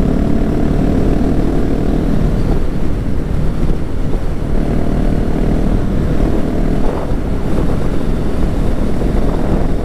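KTM 690 supermoto's single-cylinder engine running steadily at cruising speed, mixed with wind rushing over the microphone.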